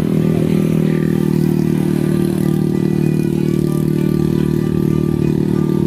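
A small motorcycle engine running steadily at one even pitch, close and loud.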